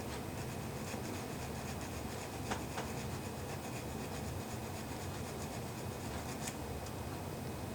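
Tiny hand file rasping in short, quick strokes on a small part of a quartz clock movement, filing it down so it no longer hits, with a few light clicks.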